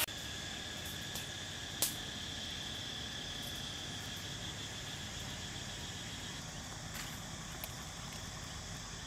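Insects trilling steadily, a continuous high drone in two even pitches over a faint background hiss, with a single sharp click about two seconds in.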